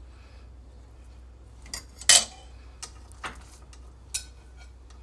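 Cutlery clinking against dishes: about five sharp clinks spread over a few seconds, the loudest about two seconds in.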